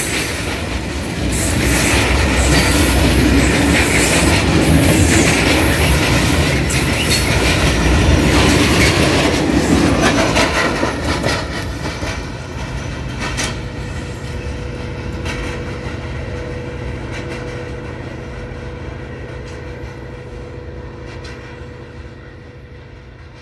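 Freight train of grain wagons rolling past close by, its wheels clattering over the rail joints. About halfway through it begins to draw away, and the clatter fades steadily.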